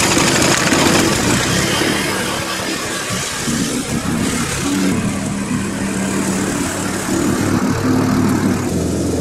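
Petrol walk-behind lawn mower engine catching on the second pull of its recoil starter, then running while it is pushed through grass, its pitch stepping up and down as it takes the load.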